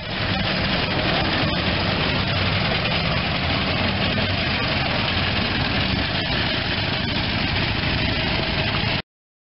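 Vintage Ford Model T's four-cylinder engine running steadily, with a few faint ticks; the sound stops abruptly near the end.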